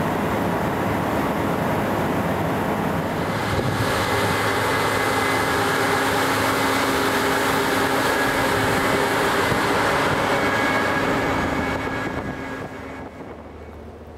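Case IH 8120 combine harvester with a stripper header working through standing wheat: a loud, steady mechanical drone with a faint whine in it. It fades away near the end.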